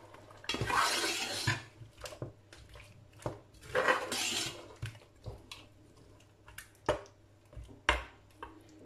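A metal spoon stirring beef chunks and onion puree in oil around a steel pot. Two longer scraping passes are followed by a few sharp clinks of the spoon against the pot near the end.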